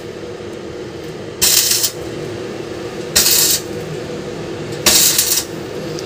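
Three short harsh hissing bursts of metalwork on the iron-and-wire-mesh cage, each about half a second long and spaced roughly a second and a half apart, over a steady low hum.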